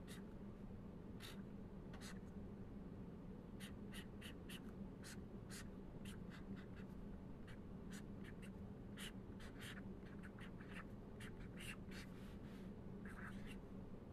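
Pen writing on paper: a faint run of short, irregular scratchy strokes.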